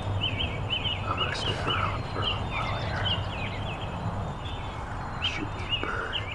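Birds chirping: short, hooked notes repeated several times a second, over a steady low background rumble.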